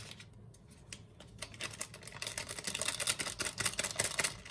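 Small paper sachet of baking powder crinkling as it is squeezed and shaken out over a mixing bowl: a rapid run of crackles that grows louder about a second and a half in and stops abruptly.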